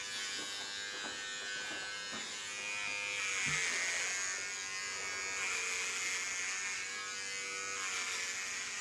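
Electric hair clippers buzzing steadily as they shave a head down to a buzz cut, a little louder about three seconds in.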